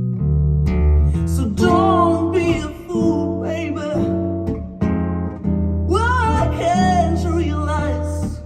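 A recorded ballad playing through Yamaha NS-1000M loudspeakers: acoustic guitar chords over a bass line, with a wavering sung line.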